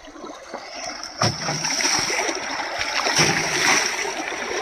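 Muddy river water splashing as a man scoops it up by hand and throws it against a tractor's wheel to wash it, the splashing growing louder about a second in with a sharp splash soon after. A thin, steady high whine runs underneath from about a second in.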